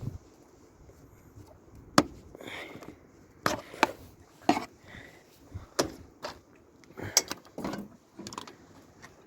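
Parts of a scrap dishwasher being handled and pulled apart by hand: a string of irregular knocks and clatters, the sharpest about two seconds in.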